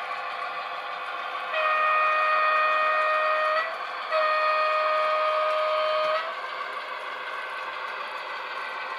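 Two long horn blasts, each about two seconds on one steady pitch, from a sound-equipped model locomotive. Under them runs the steady noise of model trains running on the layout.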